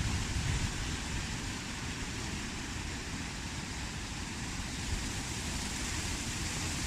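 Wind blowing with a steady hiss and irregular low rumbling buffets on the microphone, slightly stronger about half a second in.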